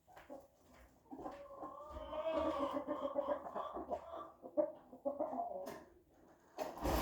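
A chicken making a drawn-out, pulsing clucking call that lasts about five seconds, starting about a second in.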